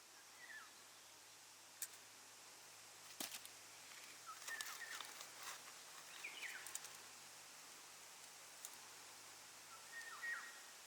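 Near silence with faint, short bird chirps now and then and a few sharp clicks.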